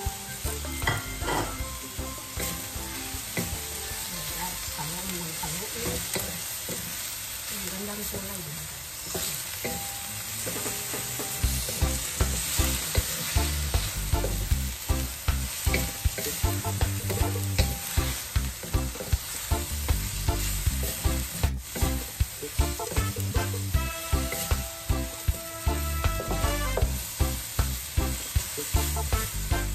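Chicken and bell pepper strips sizzling in a hot stainless steel wok while a wooden spatula stirs and tosses them. The stirring turns into regular strokes, about two a second, from roughly a third of the way in.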